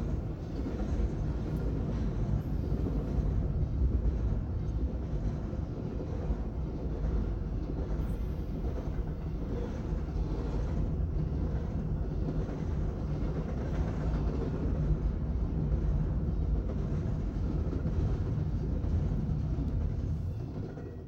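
Double-stack intermodal freight train's container-laden well cars rolling past, a steady rumble of steel wheels on rail that fades as the last cars go by near the end.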